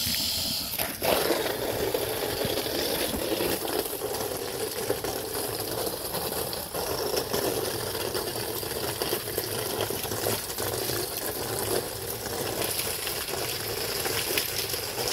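Water spraying onto vinyl siding from a washer wand, a steady hiss and spatter that changes and settles about a second in, as rust-remover product is rinsed off the siding.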